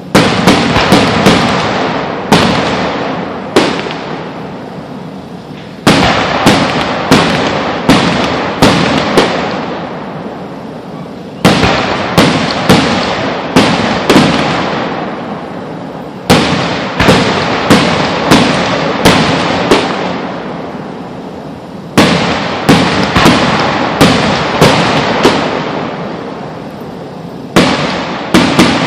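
Aerial fireworks bursting in rapid volleys, sharp bangs one after another with a crackling tail fading between them, a fresh barrage starting about every five or six seconds.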